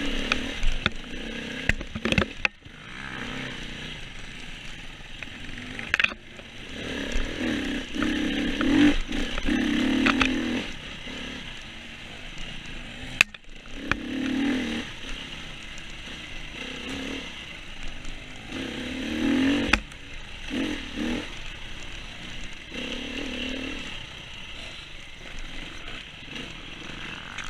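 Off-road dirt bike engine revving up and down with the throttle as the bike rides a rough trail. Now and then there is a sharp knock or clatter from the bike over bumps.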